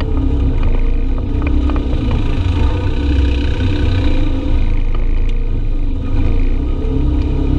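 Side-by-side UTV engine running steadily while driving, with a few short clicks.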